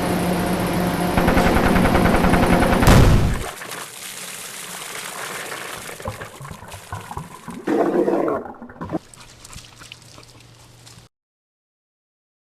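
A loud rushing noise with a steady low hum for the first three seconds or so, then a single short dog burp about eight seconds in.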